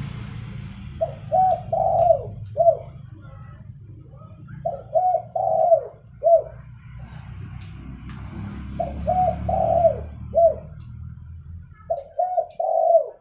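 Spotted dove cooing its song four times, about every four seconds. Each phrase has two short coos, a longer coo that falls in pitch, and after a brief pause one more short coo. A low steady hum sits underneath and fades out near the end.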